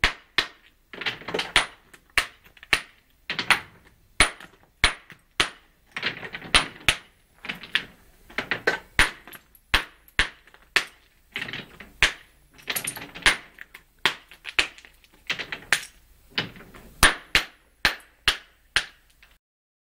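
Steel hand hammer striking and splitting stone blocks into cobbles: sharp, irregular knocks about one to two a second, often in quick clusters, with chips clattering between strikes. The knocking cuts off abruptly near the end.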